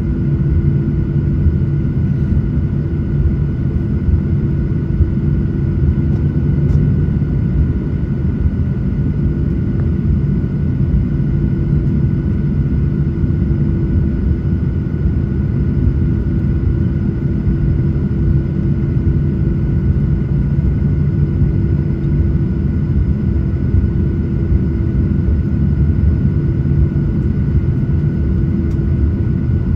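Steady cabin noise of a jet airliner on the ground with its engines idling: an even low rumble with a couple of steady hums and a thin, high whine, unchanging in loudness.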